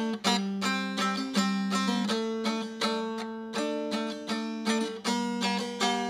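Background music: a quick run of plucked notes ringing over a steady low held note.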